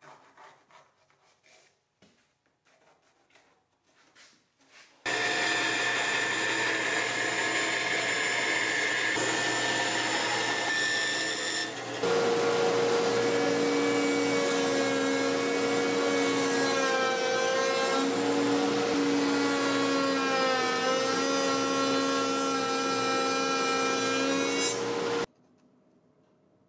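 Faint scratching of a pencil marking a board, then from about five seconds in a loud, steady power-tool whine of a table-mounted router running. Its pitch dips twice as it cuts through a board, and it stops abruptly near the end.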